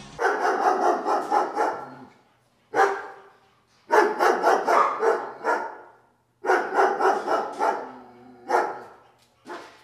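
A dog barking in several quick volleys of rapid barks, separated by short pauses.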